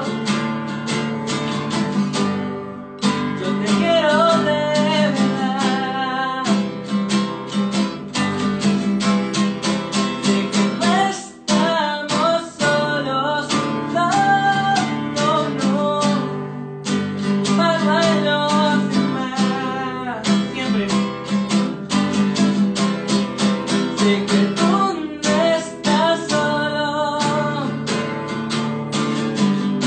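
A man singing live to his own strummed acoustic guitar, in a steady rhythm with a few brief breaks between phrases.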